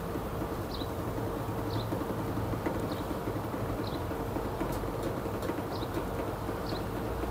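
120 cm mini roll heat transfer press running steadily, its drum and feed drive giving a constant hum with a steady tone as fabric and printed transfer paper feed through. A short high chirp repeats about once a second.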